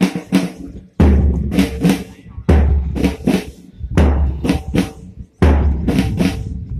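Parade marching drums: a heavy bass drum beat about every one and a half seconds, with snare drum strokes between the beats, keeping time for a march.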